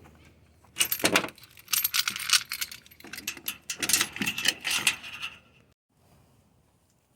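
Small metal hardware being handled, clinking and rattling irregularly for about five seconds, then cutting off abruptly.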